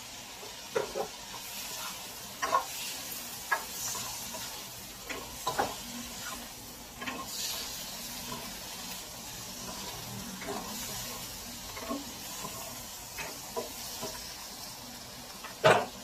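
Shrimp frying in a nonstick wok while being stirred: a steady sizzle with short knocks and scrapes of the utensil against the pan every second or so. A louder knock comes near the end.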